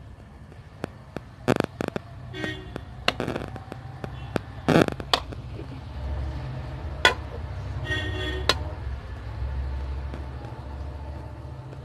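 Metal spatula scraping and knocking against an iron karahi as a lump of ghee melts over a wood fire, giving a string of sharp clicks and pops, a few of them ringing briefly, through the first eight seconds or so. A low steady rumble sits underneath in the second half.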